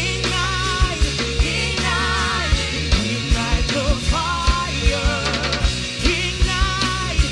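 Live worship band playing a song, with singing with a wavering pitch over a steady drum beat and a sustained bass line.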